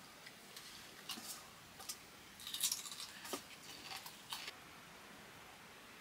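Light clicks and scrapes of small things being handled, a short cluster about two and a half seconds in, stopping about four and a half seconds in; after that only a faint hiss.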